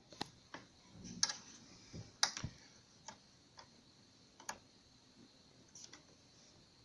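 Scattered light clicks and taps of plastic and metal computer parts being handled while fitting an SSD drive bay into a workstation case, with the two loudest clicks about a second apart near the start.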